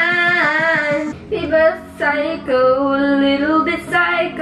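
A girl singing into a handheld microphone in short phrases with long, wavering held notes.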